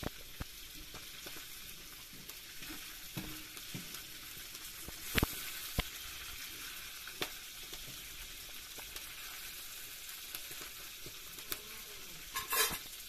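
Pieces of liver frying in a pan over a wood fire, sizzling steadily. There are a few sharp clicks about five to seven seconds in, and a brief louder burst of noise near the end.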